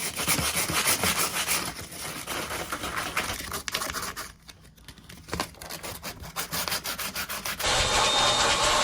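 Sandpaper rubbed in uneven scraping strokes on wood, smoothing freshly drilled bolt holes, with a short pause partway through. Near the end a vacuum cleaner starts up with a steady hiss.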